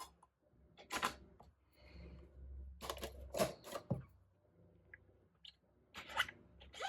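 A handful of light, separate clicks and knocks of paper-crafting tools being handled on a work table: a clear stamp and acrylic block set down and picked up.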